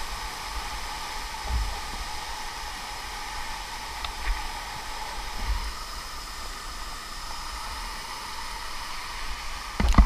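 Steady rush of a small waterfall and stream running through a rocky pool, with a few low bumps of the camera being handled. Louder knocks come just before the end.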